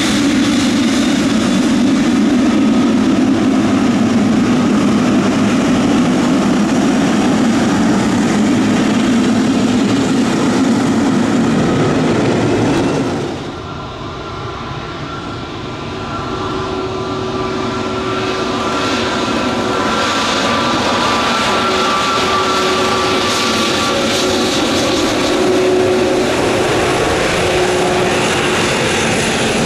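Jet engines of a Boeing 777 freighter running as it taxis past, a loud steady rumble. About 13 seconds in this cuts to an Airbus A320neo taxiing, quieter, its engines giving a steady whine with a few high tones.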